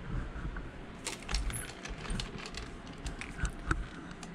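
Louvered bifold closet doors being folded open, a scattering of light clicks and rattles over the low rumble of a handheld camera being moved.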